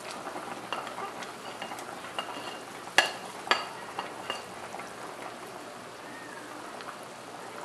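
Pork rib stew bubbling in a metal pot while a spatula scrapes sliced ginger off a plate into it, with small clinks and two sharp clinks about three seconds in. Near the end the spatula stirs the stew.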